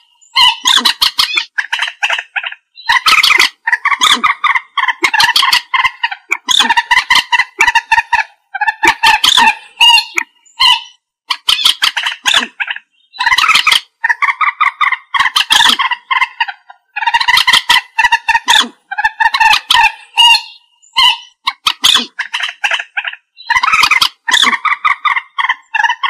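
Common moorhen calling: loud bouts of rapid, repeated notes, each bout about a second long, following one another every second or two.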